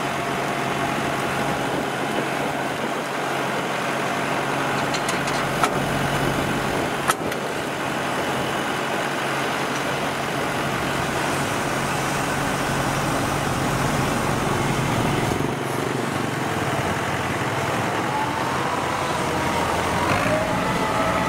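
Kubota rice combine harvester's diesel engine running steadily as the machine drives off, with two sharp knocks about five and seven seconds in.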